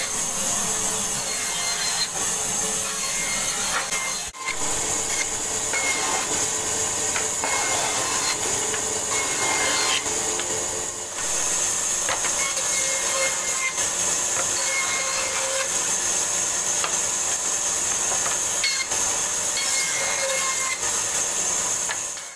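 Band saw running and cutting through wooden planks, a steady loud high-pitched hiss with brief dips about four and eleven seconds in.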